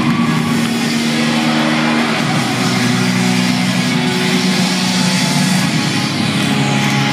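Cheer routine music playing loud through an arena sound system: held low synth notes that change pitch every two to three seconds under a dense, hissy mix.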